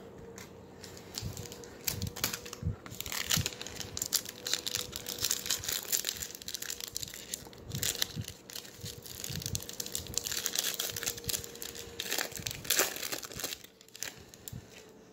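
Foil wrapper of a hockey card pack crinkling and tearing as it is pulled open by hand, in irregular crackling rustles that start about a second in and die down near the end.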